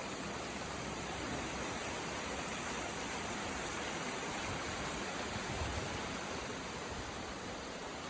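Steady rushing of floodwater, an even roar of water.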